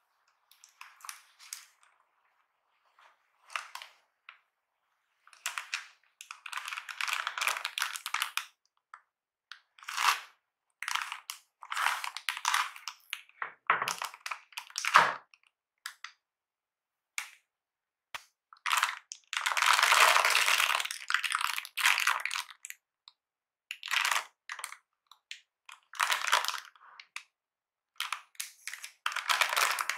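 Clear plastic film wrapped around a compact mechanical keyboard crinkling and crackling in irregular bursts as it is handled, loudest about twenty seconds in. Only faint rustles of the fabric cover come in the first few seconds.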